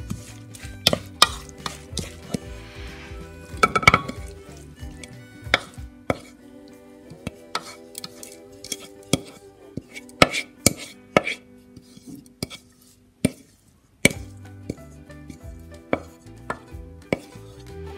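A wooden spoon knocking and scraping against a bowl in irregular sharp clicks as shredded green mango salad is tossed and then scraped out into a serving bowl, over soft background music.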